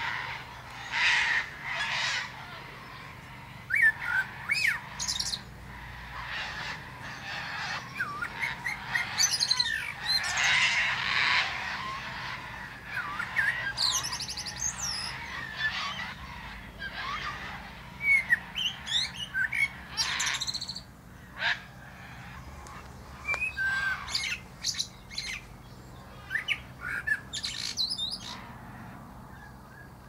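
Male common blackbird singing: short phrases of whistled, gliding notes, with brief pauses between them.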